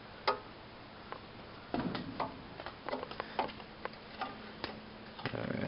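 Irregular clicks and light knocks from hands working a new gas lawnmower's controls while it is readied to start: one sharp click, then a scattered run of small clicks from about two seconds in.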